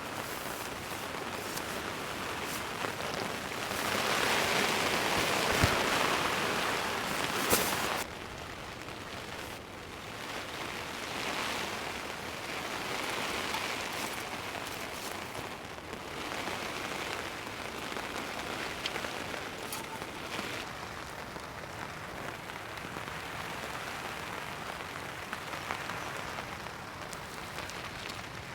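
Heavy rain pouring down steadily. It swells louder for a few seconds about four seconds in, then drops back suddenly, with a couple of sharp knocks during the louder stretch.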